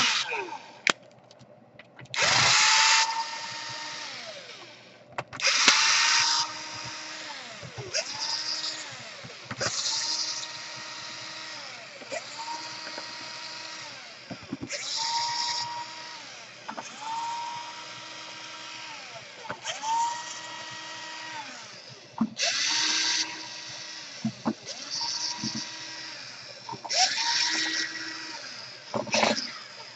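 Electric screwdriver spinning in about a dozen short runs of a couple of seconds each, its motor whine rising, holding and dropping each time, with rasping bursts as it takes out the laptop's bottom-case screws. The bit is not quite the right one for these screws.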